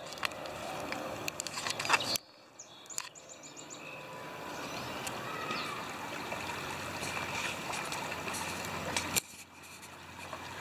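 Outdoor creekside ambience: a steady wash of flowing water with small birds chirping, including a quick run of high chirps about two seconds in. Clicks and rustles of handling or steps through dry grass come in the first two seconds, and the background drops suddenly about two seconds in and again near the end.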